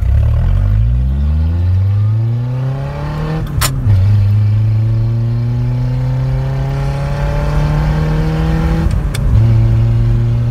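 Pickup truck engine accelerating hard on its stock exhaust, before the chrome tip is fitted, heard from inside the cab with the window rolled down. The engine note climbs, drops at an upshift about three and a half seconds in, climbs more slowly, and drops again at a second upshift near the end.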